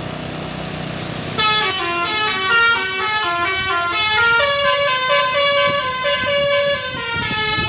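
Telolet basuri musical bus horn playing a tune: after a low steady hum, it comes in about a second and a half in with a quick run of stepped notes going up and down, then holds a longer note for a couple of seconds before more short notes.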